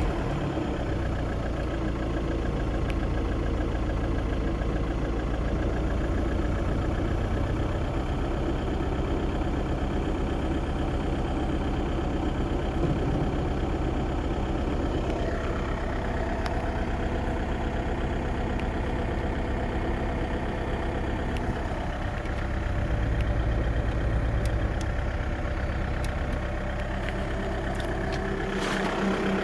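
VW Golf 5 1.9 TDI four-cylinder turbodiesel engine idling steadily just after being started.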